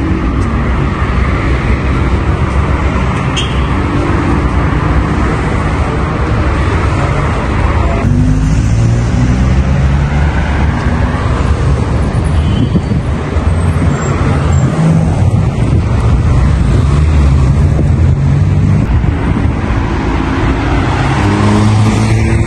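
Street traffic: cars driving past with steady engine and tyre noise, one engine's pitch rising near the end as it pulls away.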